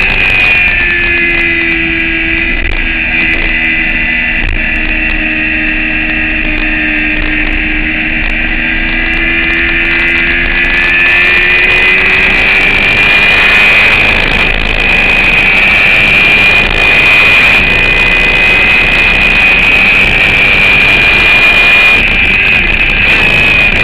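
Motorcycle engine running hard on a track lap, with rushing noise around it. The engine note eases for a stretch in the first half and then builds back up, with a steady high whine over it throughout.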